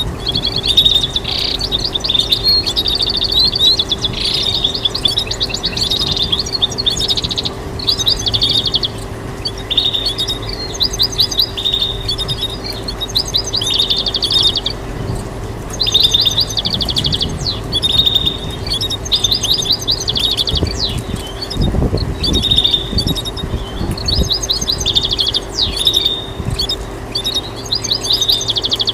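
European goldfinch singing: repeated phrases of fast twittering trills, each a second or two long, with short pauses between them, over a steady hum.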